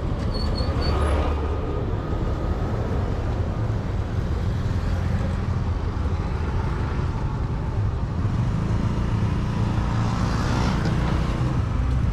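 Motor scooter riding slowly through light traffic: a steady low rumble of the engine and wind on the microphone, with the noise of passing vehicles.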